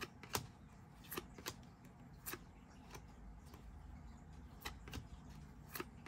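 Glossy Panini Mosaic baseball cards being slid one by one off a stack in the hand, each move giving a soft click, about seven in all. The loudest click comes about a third of a second in, and there is a pause of about two seconds in the middle.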